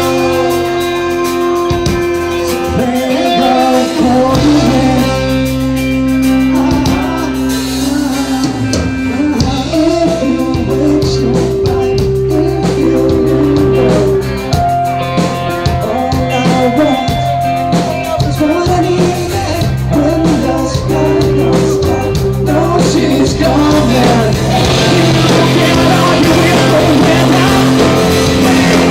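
A live rock band playing a song, with guitar and a singer, over a steady bass line; long notes are held for a few seconds at a time.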